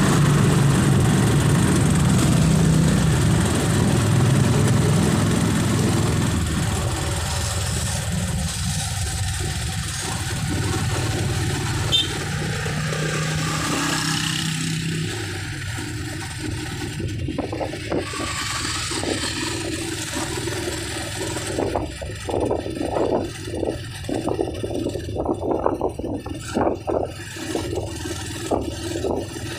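Road traffic heard from a moving vehicle: a steady engine hum for the first several seconds that then fades, leaving quieter traffic noise broken by irregular pulses in the last third.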